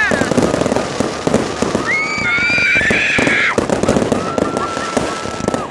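Fireworks crackling and popping in rapid, dense succession. A high whistling tone rises over the crackle about two seconds in, and a long steady whistle is held near the end.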